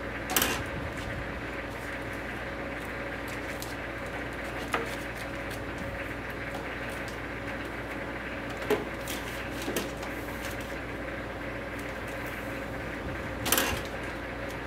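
DVD cases and wrapping film being handled at a DeltaWrap 200 overwrapping machine: five short knocks and clicks over a steady hum, the loudest about half a second in and near the end.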